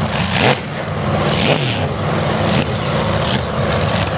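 Supercharged engines of displacement-class race boats running at full speed as they pass, a loud drone whose pitch sweeps up and down.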